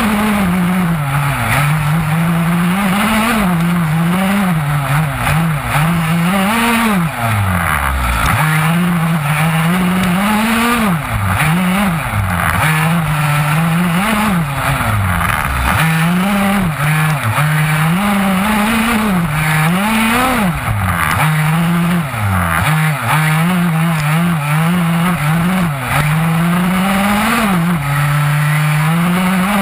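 Two-stroke petrol engine of an HPI Baja 5B SS 1/5-scale RC buggy, heard close from on board, revving up and down with the throttle every second or two. It drops to a low idle twice, about a quarter of the way in and again near the middle.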